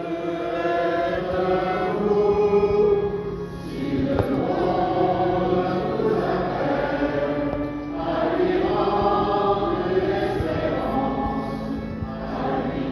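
A congregation singing a hymn together in long phrases, with short breaths between phrases about three and a half and eight seconds in.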